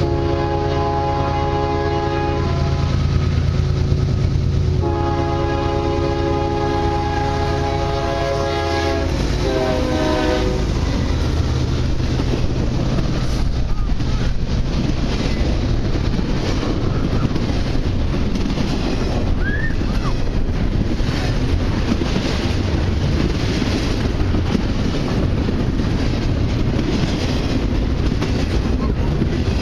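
A CSX freight train's diesel locomotive sounding its multi-tone air horn for the grade crossing: two long blasts, the second dropping in pitch as the locomotive passes, over the locomotive's engine. Then the steady rumble and wheel clatter of double-stack intermodal container cars rolling by.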